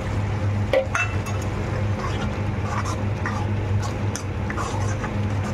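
A metal spoon stirring and scraping masala gravy in a steel kadai, with a sharp clink about a second in and short scraping strokes throughout, over a steady low hum.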